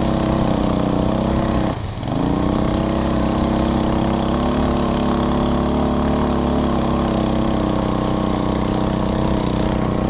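Four-wheeler (ATV) engine running steadily under throttle while towing a rider on a rope through snow. About two seconds in, the revs dip briefly, then pick back up.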